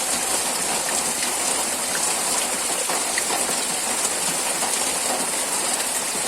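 Steady rain falling, an even high hiss with a few faint scattered drop ticks.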